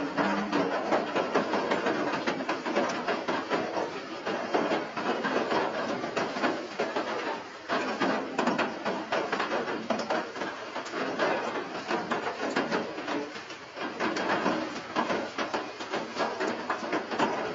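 Rain pattering, a dense stream of small ticks and taps that swells and eases.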